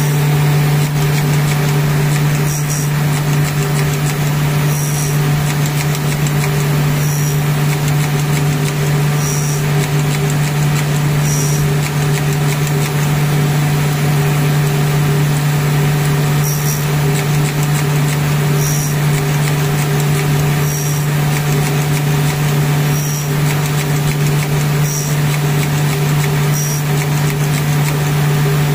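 CNC gold bangle cutting machine running: a loud, steady motor hum with a faint short tick about every two seconds.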